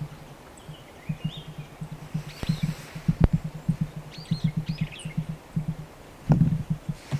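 Small birds chirping, over a low uneven throbbing and a few sharp knocks, the heaviest one near the end.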